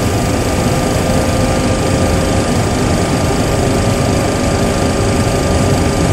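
Simulated jet engine and cockpit air noise from a Boeing 737 Classic full flight simulator: a steady hum with a faint constant whine, as engine number 2 runs on past starter cutout and settles at idle.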